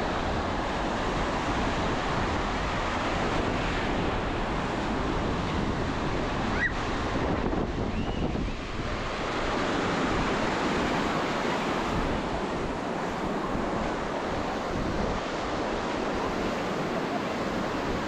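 Ocean surf washing up on a sandy beach, with wind buffeting the microphone: a steady, unbroken wash of noise.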